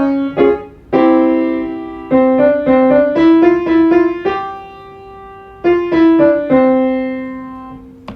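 Piano playing quick five-note scale runs up and down, each run settling on a held chord, as the accompaniment for a vocal warm-up scale. It cuts off abruptly at the end.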